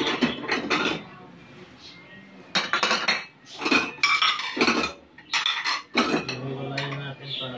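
Ceramic plates clinking and clattering against one another as they are set down and stacked on a table, in a string of short clatters with a brief ring.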